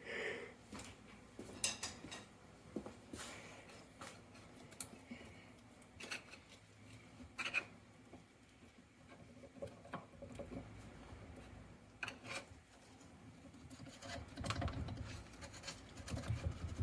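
A screwdriver prying and scraping at the metal parts of a Sherman forward-reverse transmission, giving scattered small clicks, taps and scrapes. A duller, lower rumble of the parts being shifted and handled comes near the end.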